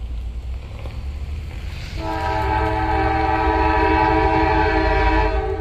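Diesel freight locomotive's air horn sounding one long chord of several notes about two seconds in, held for about three seconds, over the low rumble of the approaching train.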